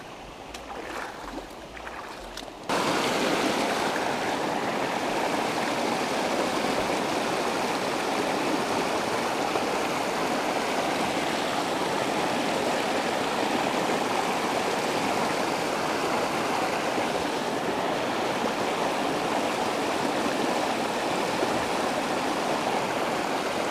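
A small, rocky mountain creek rushing over stones in a shallow riffle: a steady, even sound of running water. It starts suddenly about three seconds in; before that it is quieter, with a few faint clicks.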